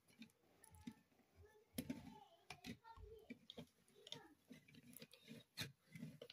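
Faint, scattered clicks and taps of plastic toy scissors being worked against modelling-dough hair on a toy salon figure, the sharpest clicks about two seconds in and near the end.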